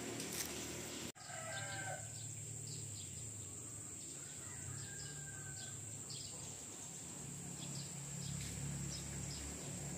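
Faint chickens in the background, with a short rooster crow about a second in and fainter calls a few seconds later, over a steady high-pitched hiss.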